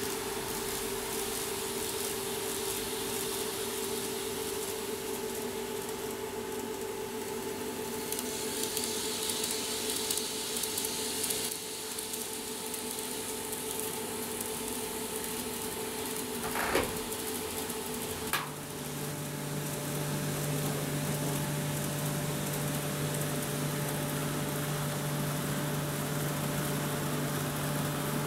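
KATO N gauge model trains running over plastic girder-bridge track: a steady electric-motor whine over a rattling hiss of small wheels on rail. About two-thirds of the way in come two sharp clicks, after which the whine gives way to a lower steady hum as a different train runs.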